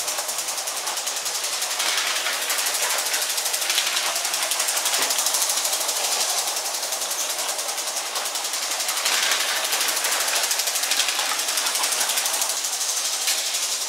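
Lego 12V electric toy train running on plastic track: a steady high-pitched rattle of rapid clicks from the motor and wheels, rising and falling slightly as it passes close by.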